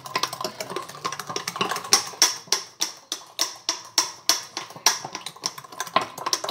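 Spoon stirring fast in a glass of cold milk and iced-coffee powder, clinking against the glass in quick sharp strikes that settle into a steady beat of about three a second. The fast stirring whips up the foam layer on the drink.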